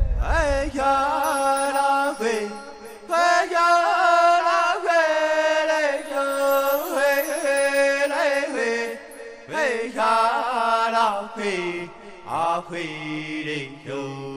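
A single voice chanting in long, held, wavering notes over a low sustained drone, opening on a deep boom that fades away.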